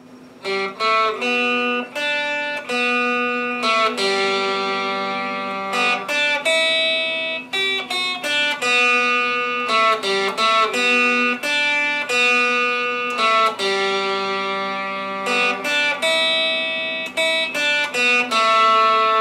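Electric guitar played through a homemade cereal-box amplifier built around an LM386 chip, its small speaker sounding a melody of single picked notes. The notes start about half a second in, and some are left to ring.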